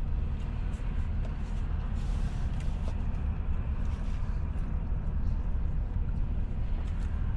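Steady low rumble of an idling car engine, with small clicks of chewing over it.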